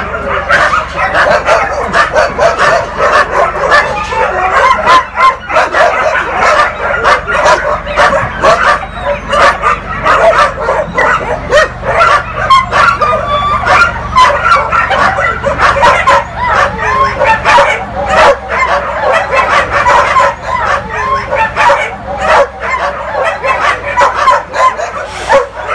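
Many dogs barking and yelping at once in a continuous, overlapping chorus of kennel barking.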